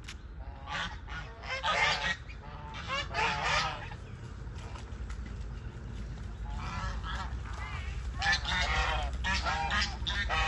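Domestic goose honking in repeated bouts of calls, each bout lasting a second or so, with a lull of a few seconds in the middle.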